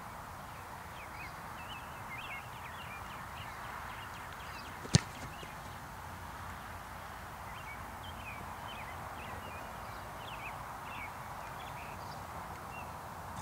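A single sharp thump about five seconds in: a football struck by the kicker's foot on a place-kicked field goal. Faint bird chirps and a steady outdoor hiss run underneath.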